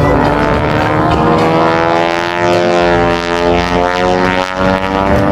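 An aircraft flying low past the crowd, its engine sound sweeping and phasing as it passes closest about three and a half seconds in.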